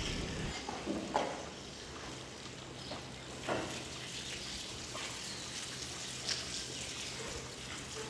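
Faint ambient background: a steady low hum with scattered small clicks and taps.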